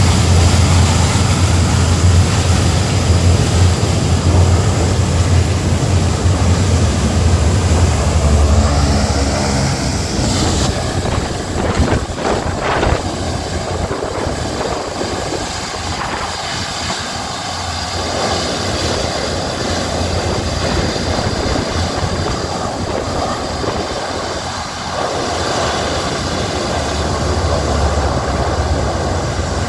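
Antonov An-12's four Ivchenko AI-20 turboprop engines running at taxi power as the aircraft taxis away, a loud, steady, deep propeller drone. It drops somewhat in the middle and swells again near the end as the aircraft turns.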